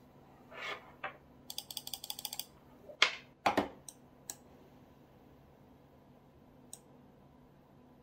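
Clicking at a computer: single clicks, a quick run of rapid clicks about a second and a half in, and a couple of louder clicks around three seconds in. Under them runs a faint steady hum from the SilverStone VIDA 240 SLIM AIO's pump and slim fans.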